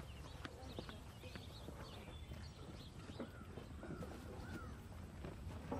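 Faint outdoor ambience with birds chirping here and there and a few light clicks.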